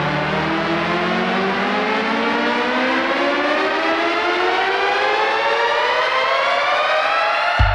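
Intro of a hip-hop track: a full, many-toned sound sweeping slowly and steadily upward in pitch, like a riser. The beat drops with heavy kick drums right at the end.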